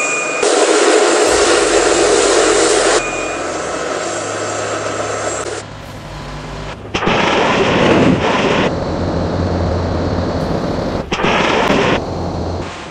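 Missile launches, heard as loud roaring rushes of noise that cut in and out abruptly three times, the first about half a second in. A steady high whine runs under the start.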